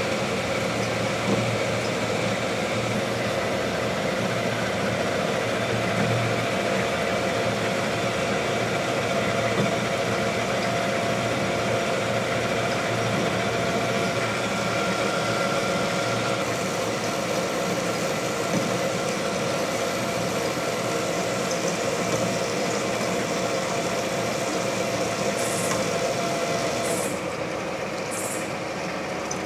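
Vertical band saw running and cutting through a rusty steel bar under flood coolant: a steady mechanical running with a few held tones. About 27 seconds in it gets a little quieter and one tone drops out as the cut ends.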